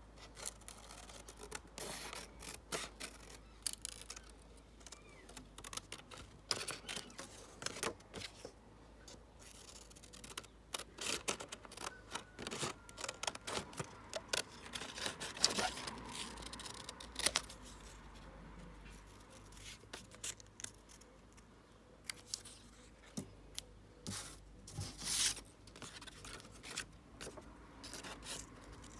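Small scissors snipping through thin printed card, a quick, irregular run of cuts.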